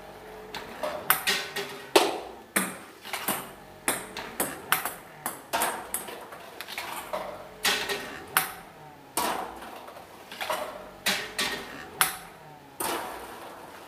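Ping pong balls struck by a robot's hitting arm, swung by a stepper motor, and bouncing on a wooden tabletop: a run of sharp light clicks and taps, several a second, some in quick clusters.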